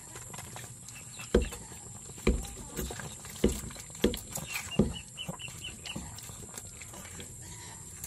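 Five dull, irregularly spaced thumps as goats jostle against the handheld phone, with a quick run of short high peeps in the middle.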